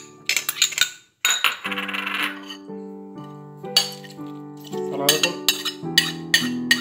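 Background music of steady chords, with sharp clinks and taps of a metal spoon against a glass bowl and then a china plate as cherry tomatoes and chopped lettuce are scraped into a salad bowl. The taps come quickly, about two a second, in the last two seconds.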